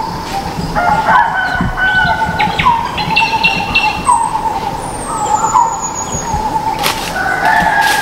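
Rooster and hens calling: crowing and clucking, mixed with repeated short calls from other birds. About four to six seconds in, a thin high whistle falls slightly in pitch.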